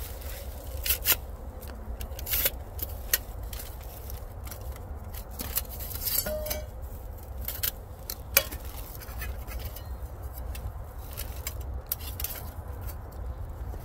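Firebox folding camp stove being unfolded and assembled: its hinged metal panels click and scrape as they are swung open and slotted together, in a string of sharp, irregularly spaced clicks.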